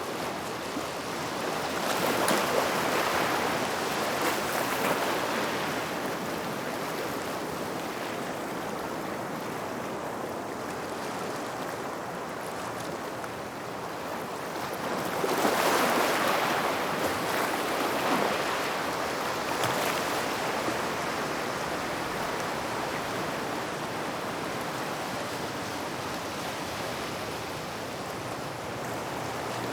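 Waves washing in at a gravel shoreline, a steady wash with two louder surges as waves break, one about two seconds in and a stronger one about fifteen seconds in.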